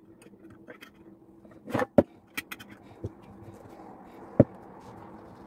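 Glass jars of hot jam, just closed with metal lids, being turned upside down and set on a plastic cutting board to seal: a few knocks and clinks, the sharpest about two seconds in and another just over four seconds in, with soft handling rustle between.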